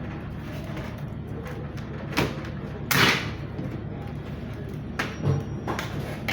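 Plastic clicks and knocks of an HP Pavilion G series laptop's battery being released and slid out of the case: several separate sharp sounds, the loudest about three seconds in.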